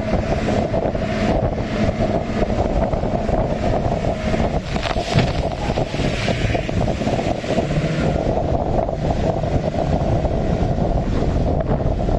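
Motorboat running fast through choppy sea: a steady engine drone mixed with wind buffeting the microphone and water rushing and splashing past the hull.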